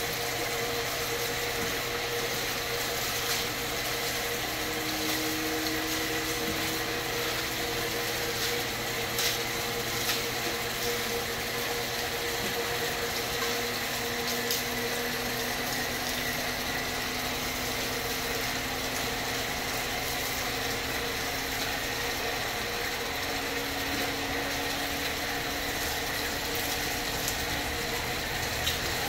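A steady machine hum, like a motor or engine running, holds throughout, with slow faint pitch drifts and a few faint clicks.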